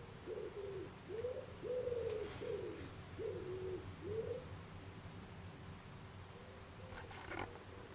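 A dove cooing: a run of short, smooth coos, each rising and falling in pitch, that stops about four seconds in. A brief rustle comes near the end.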